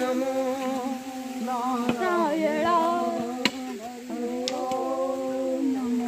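A voice singing a slow devotional chant in long, drawn-out held notes, close to humming. A few sharp clicks are heard through it.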